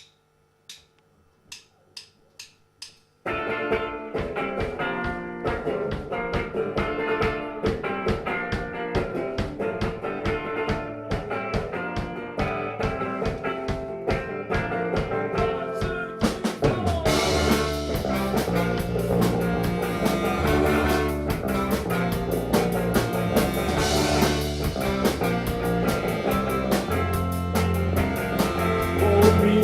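Six sharp stick clicks counting in, then a live band starts the instrumental intro of a rock song with drums, and the low end grows heavier about halfway through.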